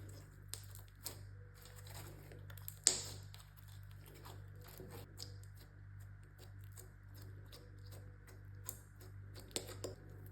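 Slime being squeezed and poked by hand, making irregular sticky clicks and pops, the loudest pop about three seconds in, over a steady low hum.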